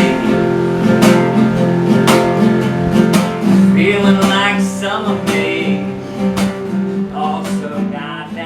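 A song played on strummed acoustic guitar.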